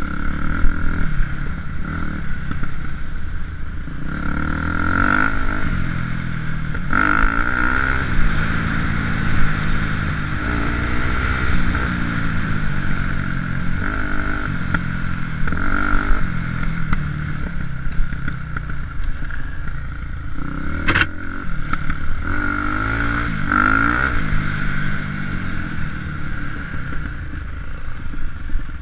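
KTM enduro motorcycle engine revving up and down over and over as the bike is ridden over rough trail, with rattle and clatter from the bike. A single sharp knock comes about two-thirds of the way through.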